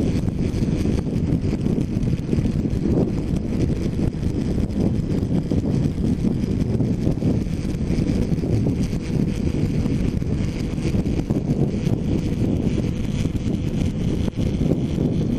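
Heavy wind noise buffeting a helmet-mounted action camera on a motorcycle at steady road speed, a dense low rumble with the motorcycle's engine running steadily beneath it.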